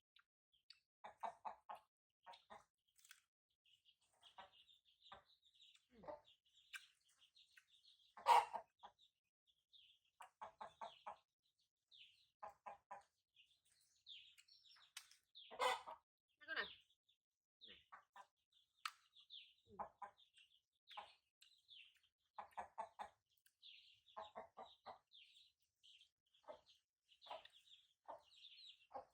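A hen clucking in short runs of quick pulses every second or two, over the steady high peeping of chicks. Two louder calls stand out about eight and fifteen seconds in.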